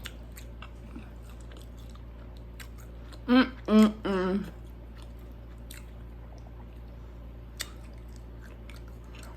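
A person chewing food with the mouth, soft wet clicks and smacks. About three seconds in comes a brief voiced murmur in three short parts, louder than the chewing.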